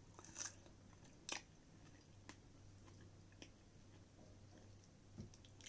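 Faint mouth sounds of someone chewing strawberries: a few soft, scattered clicks and smacks, the loudest about a second in.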